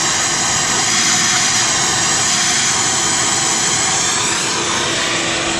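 Wet/dry shop vacuum running steadily, a loud motor whine with a rushing of air.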